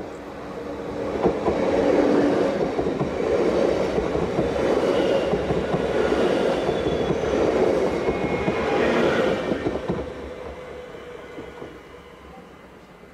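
Siemens Desiro electric multiple unit passing close by, its wheels running on the rails with scattered clicks. The sound builds over the first two seconds, stays loud for about eight seconds, then fades as the train moves away.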